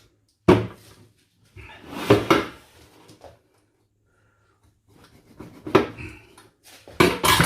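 Kitchen knocks and clatter of utensils while a goose is cut up: a sharp knock about half a second in, a busier stretch of clatter around two seconds in, another knock later, and a cluster of knocks near the end, with quiet between.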